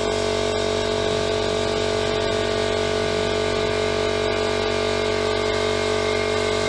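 Homemade CNC machine running, a steady machine hum with several fixed tones and a few faint ticks.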